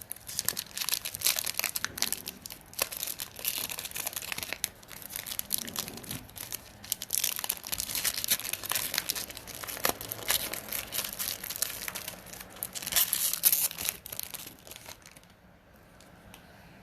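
Wrapper of a Panini Optic basketball card pack being crinkled and torn open, a dense, crackling rustle that stops about two seconds before the end.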